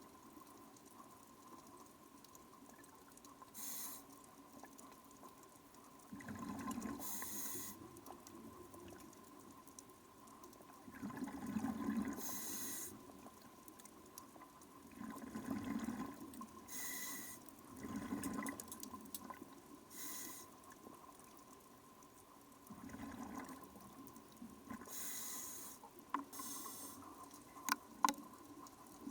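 Scuba diver breathing through a regulator underwater: a hiss on each inhale and a burst of exhaled bubbles on each exhale, repeating every four to five seconds. A few sharp clicks come near the end.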